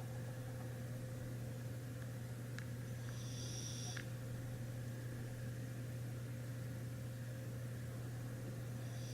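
Sleeping dog snoring, with a high, whistling breath a little past three seconds in and again near the end, over a steady low hum.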